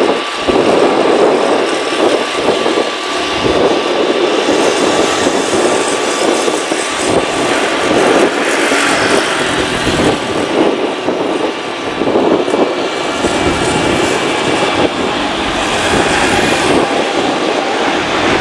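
Boeing 777-300ER's twin GE90 turbofans at takeoff thrust: a steady, loud rush of jet noise with a faint steady whine, as the airliner rolls down the runway and lifts off.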